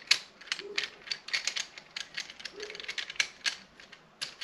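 Quick, irregular clicks and light rattling of a camera tripod's head and a small mount being handled and fitted together.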